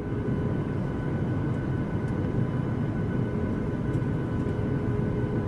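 Spacecraft engine sound effect: a steady low rumble with a faint, even hum of tones above it.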